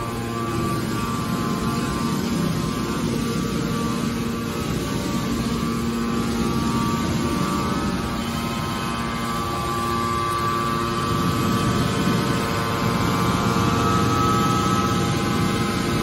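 Hydraulic power unit of a large horizontal metal baler running: electric motor and hydraulic pump giving a steady hum with a constant whine, growing a little louder in the last few seconds.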